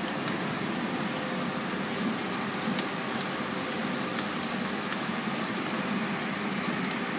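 Steady running noise of a train at speed, heard from inside a Vivalto double-deck passenger carriage, with a few faint ticks.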